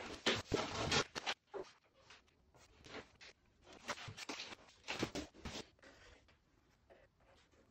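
Irregular scraping and rustling handling noises in several short bursts, densest in the first second and again around the middle, as a plaster moulding is picked up and handled and the wall is marked with a pencil.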